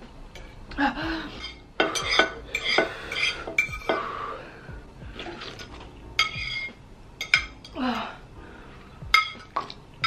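A metal fork scraping and clinking against a ceramic plate while scooping up the last of the sauce, in short sharp clinks and scrapes at irregular intervals.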